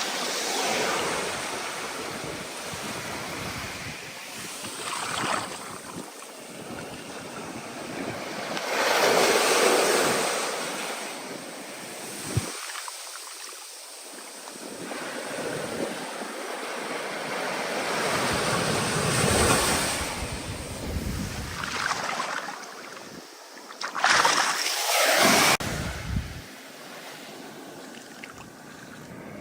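Stormy ocean surf: waves surging and breaking in several swells of rushing noise, the loudest about a third of the way in and again near the end, the last one cutting off suddenly.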